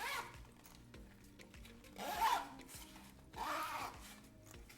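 Heavy-duty zipper on a fabric accessory pouch being pulled along in three strokes, at the start, about two seconds in and about three and a half seconds in. Faint background music underneath.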